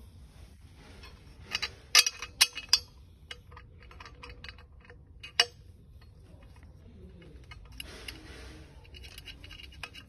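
Metal clinks and knocks as black metal sofa-frame parts and bolts are handled and fitted together, with a cluster of sharp knocks about two seconds in and another past five seconds, and lighter ticks between. A short stretch of soft rustling comes late on.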